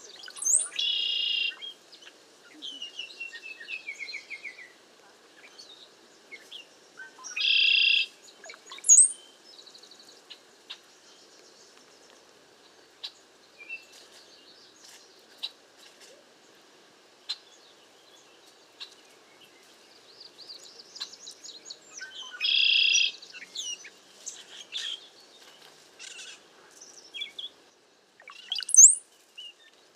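A bunch of cowbirds calling. There are three loud, harsh calls about a second long, and thin high whistles that slide upward between them. Softer chips are scattered through.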